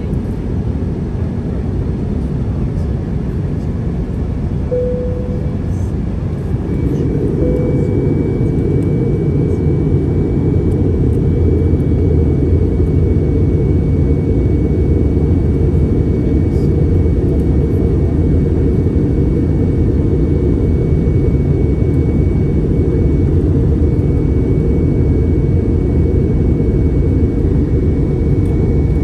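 Airliner cabin noise: a steady, loud low rumble of engines and airflow, stepping up louder about six or seven seconds in.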